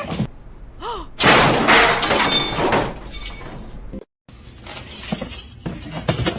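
A short falling cry, then a loud crash lasting about a second and a half, like something shattering. After a sudden cut, a few light knocks.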